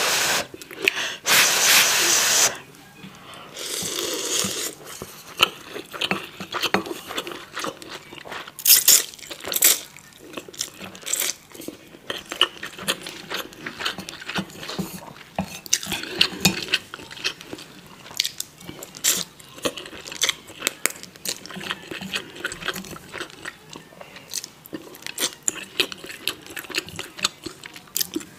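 Close-miked slurping of ramen noodles, two long loud slurps in the first few seconds and a shorter one a little later, followed by wet chewing and lip smacking with many small clicks.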